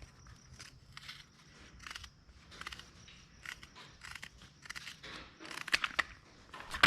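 Irregular crunching and clicking noises, sparse at first and busier and louder about two-thirds of the way in, ending on one sharp click.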